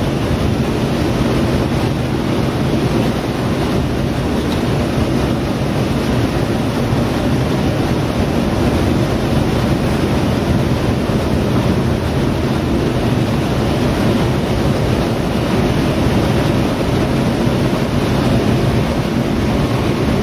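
Steady running noise of a DB class 420 S-Bahn electric multiple unit at speed, heard from inside the carriage: a deep rumble of wheels on rail with a faint steady motor hum, holding an even pitch and loudness throughout.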